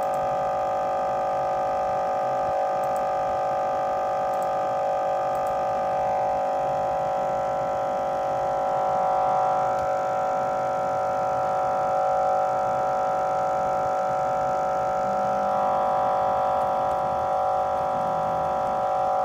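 Steady electronic drone of several held tones that does not change, the stuck, looping sound of a crashed computer that will not reset.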